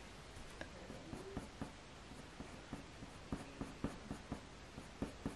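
Faber-Castell Polychromos coloured pencil flicking short fur strokes on hot-press watercolour paper: a faint scratchy tick with each stroke, sparse at first and coming about three or four a second in the second half.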